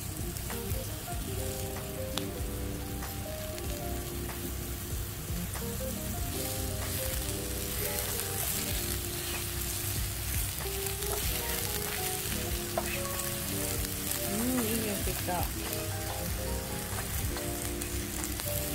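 Sliced king oyster mushrooms sizzling as they fry in butter in a frying pan, with the odd click as they are turned with tongs. Background music plays underneath.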